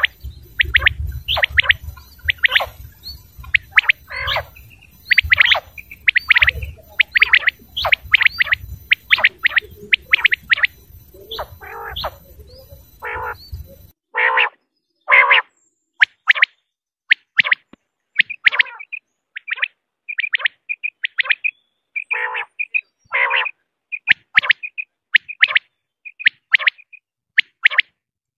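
Male common quail calling: short, sharp, repeated calls, often in quick groups of two or three notes. A low background rumble underlies the calls and stops suddenly about halfway through.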